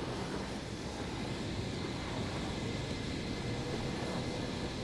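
Steady aircraft engine noise: a continuous low rumble and hiss with a faint high whine held at one pitch.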